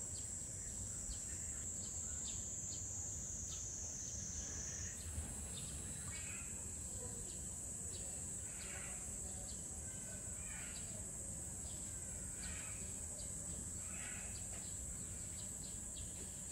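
Steady high-pitched drone of summer cicadas, with faint short chirps scattered through it.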